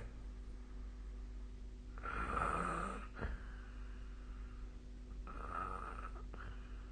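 A sleeping person snoring: two snores, the first about two seconds in and the second near the end, with a short click just after the first. A steady low hum runs underneath.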